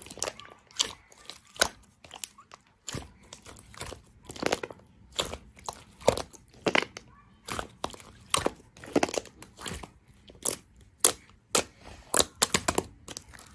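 Slime being squeezed and kneaded by hand, giving sharp, irregular pops and clicks from trapped air, about one or two a second, with softer crackling in between.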